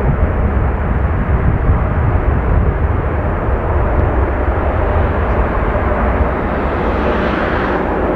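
Boeing 747 jet engines at departure thrust: a steady, loud, deep rumble with rushing noise, a little brighter briefly near the end.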